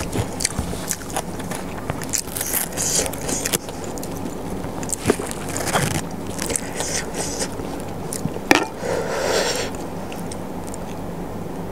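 Close-miked chewing of a mouthful of spicy Thai papaya salad, with irregular clicks and crunches. Near the end, fingers pick through the salad on the tray.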